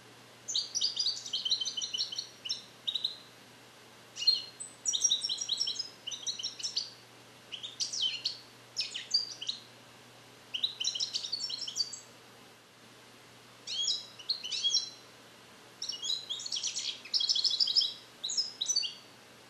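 Male European goldfinch singing in short bursts of rapid, high twittering notes and trills, with brief pauses between phrases. The bird is song-trained in Neapolitan 'passata' phrases and is repeating them, but the song is not yet complete.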